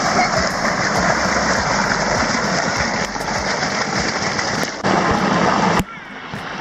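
Steady rushing of flowing stream water, with faint voices behind it; the rush drops sharply to a quieter hiss about a second before the end.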